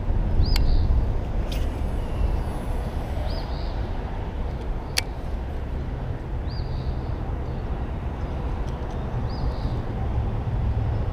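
Steady low rumble of highway traffic, with a bird repeating a short high call about every three seconds and a few sharp clicks.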